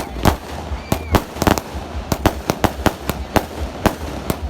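A 36-shot consumer fireworks cake firing its shots in rapid succession: sharp reports, several a second at uneven spacing.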